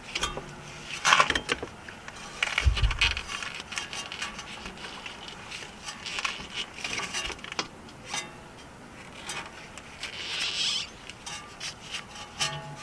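Irregular metal clicks, taps and scraping as a pry bar and hand wiggling work a handbrake cable end loose from its bracket at the handbrake lever, with a dull thump about three seconds in.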